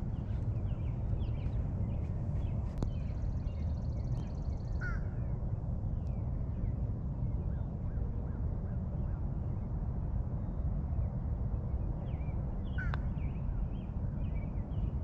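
Birds calling in short chirps and calls, with a high, rapid trill lasting about two seconds a few seconds in, over a steady low rumble.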